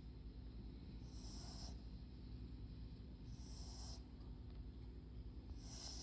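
Papillon × Japanese Chin mix dog snoring softly in its sleep, an airy, hissing breath about every two seconds, three in all.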